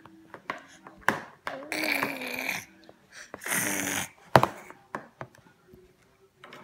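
A baby making two long, raspy, breathy vocal sounds, one about two seconds in with a wavering low pitch and another about three and a half seconds in, among several sharp clicks.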